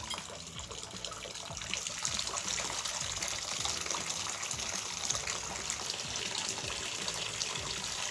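Water pouring steadily from a bathtub spout into a drinking glass held under it, the shower valve turned to full hot.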